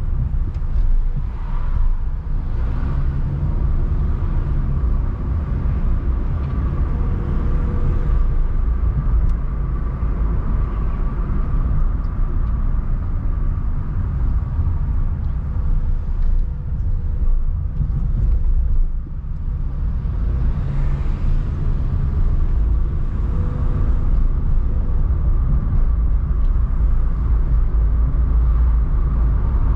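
Car driving on city streets: a steady low rumble of engine and tyres on the road, with a brief dip in loudness about two-thirds of the way through.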